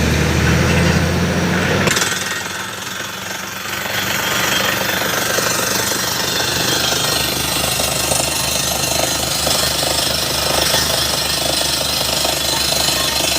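Construction machinery at work: a heavy engine drones steadily for about two seconds, then gives way to rapid, continuous mechanical pounding like a jackhammer breaking ground.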